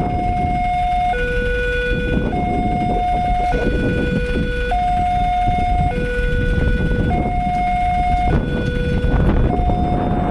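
Railway level-crossing warning alarm sounding two alternating electronic tones, high then low, each held a little over a second, signalling that a train is approaching. A steady low traffic rumble runs underneath.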